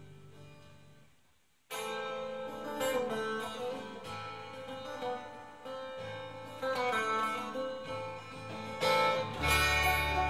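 Acoustic guitar played solo, plucked notes ringing over one another. The sound dies away over the first second or so, then the playing comes back in suddenly, and a deep low note enters near the end.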